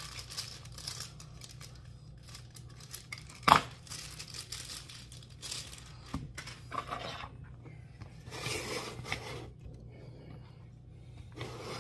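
Kitchen counter handling sounds: rustling and crinkling of packaging while a rolled pie crust is fetched, with scattered small clicks. One sharp knock about three and a half seconds in is the loudest sound.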